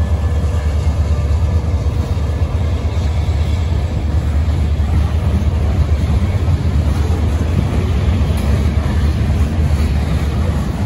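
Freight train passing close by: a string of boxcars rolling steadily, their wheels giving a constant low rumble on the rails.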